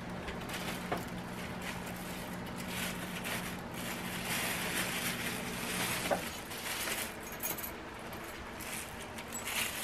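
Thin disposable plastic food-prep gloves rustling and crinkling as they are pulled from their bag and worked onto the hands. A low steady hum underneath stops about six seconds in.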